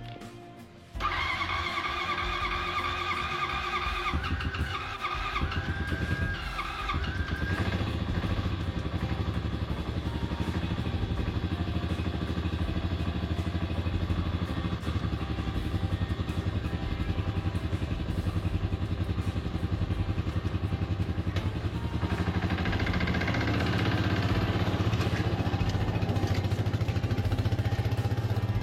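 Jeep engine coming in suddenly about a second in, with a whine for the first few seconds, then running steadily with a fast even pulse, a little louder near the end.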